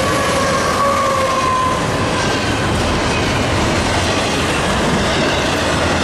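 Freight train rolling past at close range: a diesel locomotive goes by, then double-stack intermodal container cars, their steel wheels clicking over the rail joints. A thin wheel squeal falls slightly in pitch in the first couple of seconds.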